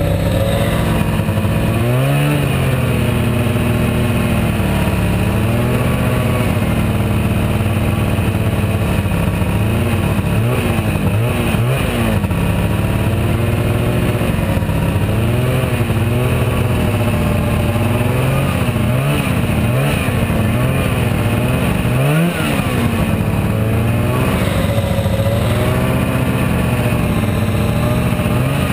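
Arctic Cat Jag Deluxe 440 snowmobile's two-stroke engine running, its pitch rising and falling again and again with the throttle.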